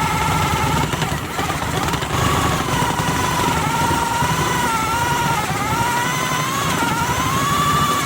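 Small handheld power tool motor running with a steady high whine, its pitch dipping and recovering as it works into the PVC piece.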